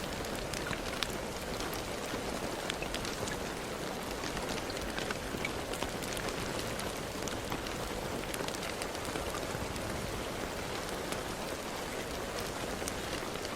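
Steady rain falling, with a constant hiss and many scattered drop ticks and splats on a hard surface.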